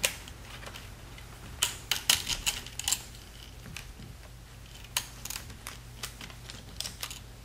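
Scattered light clicks and taps of fingers handling the MagSafe board and its cables inside an open MacBook Pro unibody case, a quick cluster about two to three seconds in and a few more near the end, over a faint steady low hum.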